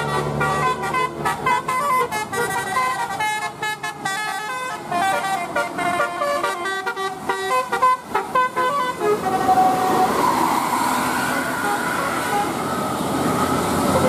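Tour bus's telolet multi-tone horn playing a quick tune of short, stepped notes for about nine seconds, then stopping. After it, engine and traffic noise as the bus passes.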